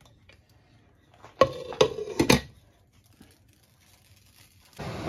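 Cookware clanking: a few sharp knocks with a short metallic ring, about a second and a half in, as a glass lid with a steel rim is set on a pan.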